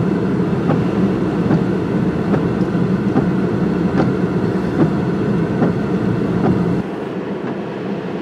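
Steady rumble inside a car's cabin during hurricane rain and wind: the car running, with rain on the body and windshield, and faint regular ticks a little more often than once a second. Near the end the sound drops and the low rumble falls away.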